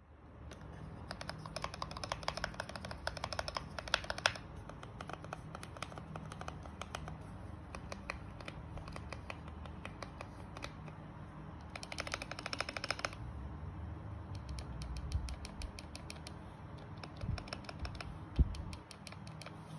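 Typing on a mechanical keyboard: fast runs of key clicks in the first few seconds and again about twelve seconds in, single presses between, and a few heavier thuds near the end. With the stabilizers damped with EVA foam, the long keys press with no rattle; near the end the stabilized keys rattle with a 'tick'.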